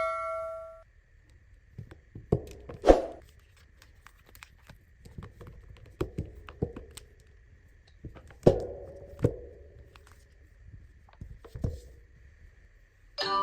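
The last ring of a chime tone dies away in the first second. Then come scattered irregular knocks, taps and a few louder thuds, the noise of objects being handled on a hard surface, over a faint steady high-pitched tone.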